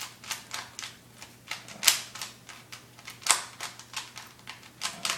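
Rubik's Cube being scrambled by hand, its plastic layers twisted in quick irregular clicks, about three or four a second, with a couple of louder snaps.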